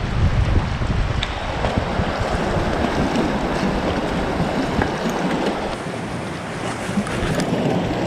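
Wind buffeting the microphone over the wash of sea waves breaking on shore rocks. The low wind rumble is strongest for the first second or so, after which the hiss of the surf dominates.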